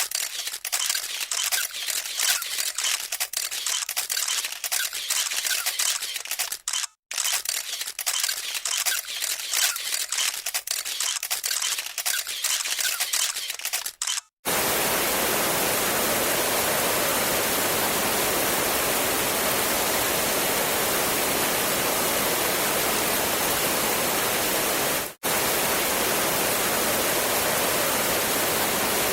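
A dense run of camera shutter clicks, with short silent breaks, followed by the steady, even hiss of heavy rain.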